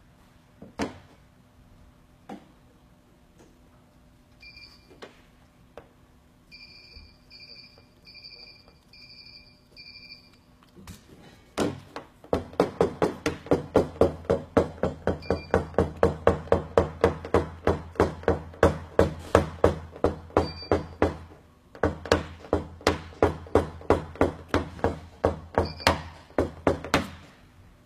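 A PDR tap-down pen knocked against a car body panel in quick, even taps, about three a second, with a short break about two-thirds of the way through. This is the sound of tapping down a high spot around a dent.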